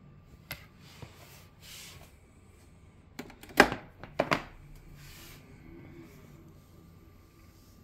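Handling of the EcoFlow River 2's AC input cable as it is unplugged: soft rustles and small clicks, then a quick cluster of sharp plastic knocks, the loudest about three and a half seconds in. A faint steady high tone runs underneath.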